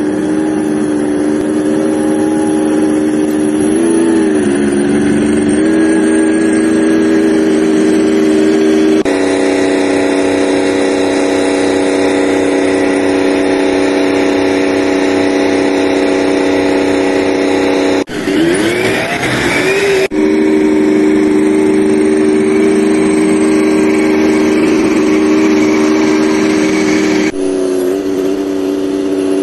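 Main battle tank's diesel engine running as the tank drives, a steady droning note with a brief dip in pitch about four seconds in. Around eighteen seconds in the pitch wavers up and down for a couple of seconds.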